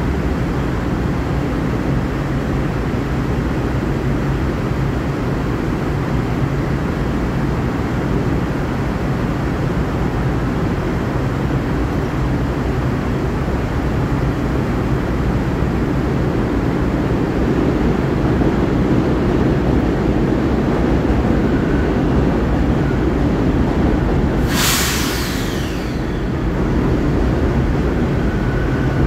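LIRR M3 electric multiple-unit train standing at the platform, its equipment giving off a steady low hum. About 25 seconds in there is one brief sharp hiss that sweeps down in pitch.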